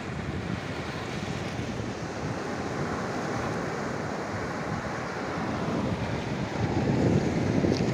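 Sea surf washing over rocks, with wind noise on the microphone; the wash grows louder near the end.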